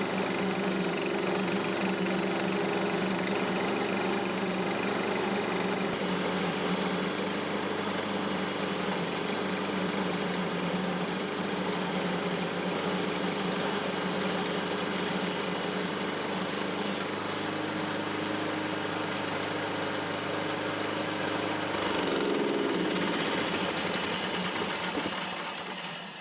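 Gasoline engine of a bandsaw mill running steadily, its pitch wavering briefly late on before the sound drops off near the end.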